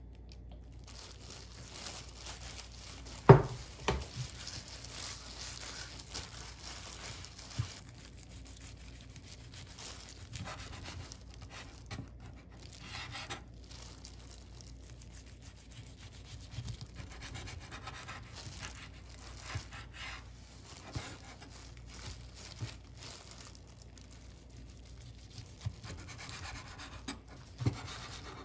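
A chef's knife slicing through rolls of gimbap on a wooden cutting board, the blade knocking on the board now and then, with the crinkle of disposable plastic food gloves. A sharp knock about three seconds in is the loudest sound.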